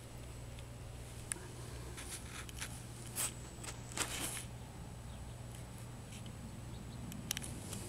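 Faint scratchy rustles and a few soft clicks close to the microphone, the loudest around the middle, over a low steady hum: handling noise as the camera is moved among cats.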